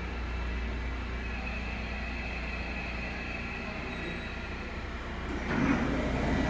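Seoul Subway Line 7 electric train rolling slowly into an underground station behind platform screen doors and braking to a stop, with a steady low rumble. About five and a half seconds in, a sudden, louder rush of noise starts and carries on.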